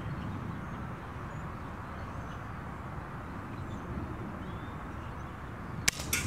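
A Daisy 880 multi-pump air rifle fires once near the end with a sharp pop. A second, quieter click follows a moment later, and the shooter calls the shot a ricochet. Before it there is only steady outdoor background noise.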